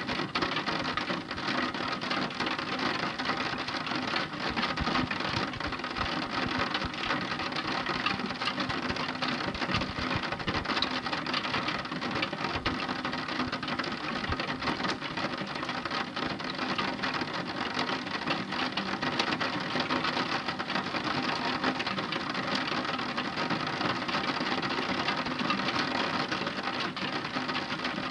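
Intense rain falling steadily, a dense patter of many drops.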